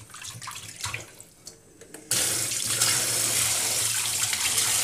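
A hand swishing a fish in a plastic basin of water in a steel sink, with small intermittent splashes. About two seconds in, the kitchen tap is turned on and water pours steadily into the basin to rinse the fermented fish.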